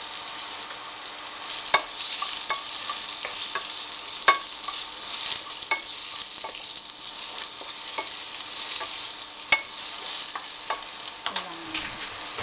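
Carrot sticks sautéing in hot oil in a nonstick frying pan: a steady sizzle, with the sharp clicks and scrapes of a spatula stirring them against the pan every second or so.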